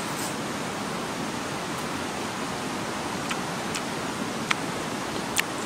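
Steady rushing of river water, with a few short sharp clicks from chewing the cooked chicken head in the second half.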